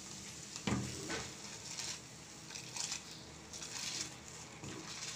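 Soaked basmati rice tipped from a plastic bowl into a steel pot of boiling water, with a knock about a second in and scattered splashes and patters as the rice drops in, over the hiss of the boiling water.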